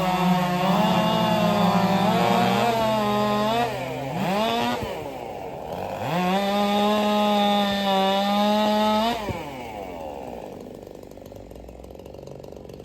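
Several modified 4-cubic-inch race chainsaws running at full throttle through their cuts, their pitches overlapping. The saws drop off one by one: a single saw runs steady from about six to nine seconds, then its pitch falls and the engine noise dies away near the end.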